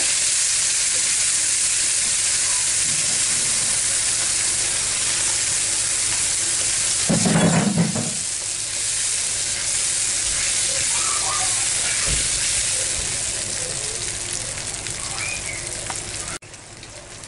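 Marinade gravy sizzling in hot oil in a frying pan while a spatula stirs it, with a louder stretch of sizzle and stirring about seven seconds in. The sizzle gradually quietens and cuts off suddenly near the end.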